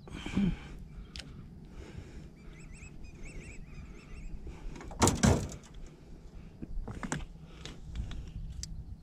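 A single loud thump about five seconds in, over a low steady hum. Faint high chirping is heard between about two and four seconds in.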